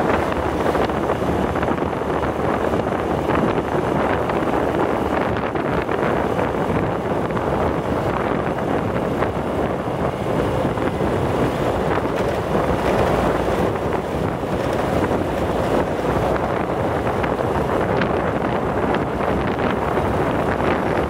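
Steady wind rushing over the microphone of a camera on a moving motorbike, with the bike's running and road noise blended in. No single event stands out.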